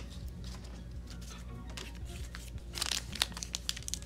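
Foil wrapper of a Panini Totally Certified hockey card pack crinkling as it is handled and starting to be torn open, with the crackling growing denser and louder over the last second or so. Quiet background music runs underneath.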